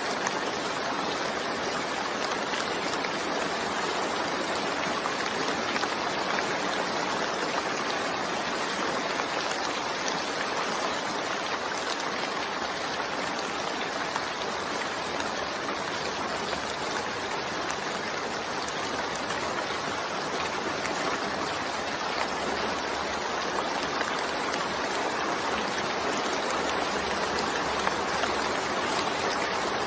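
Steady heavy rain falling, an even, unbroken hiss with no distinct drops or gaps.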